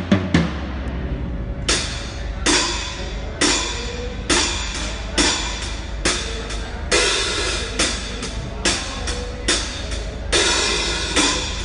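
Drum kit during a sound check: a quick run of drum hits ends just after the start, then a steady beat of bright cymbal-and-drum strikes follows, a little faster than one a second, over a steady low hum.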